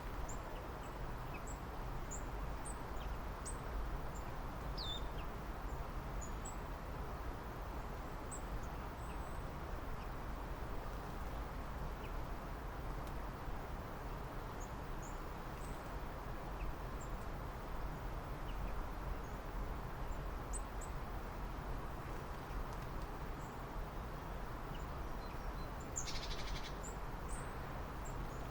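Small birds calling sparsely outdoors: thin, very high short chirps scattered throughout, one falling whistle about five seconds in, and a brief buzzy trill near the end, over a steady low background hiss and rumble.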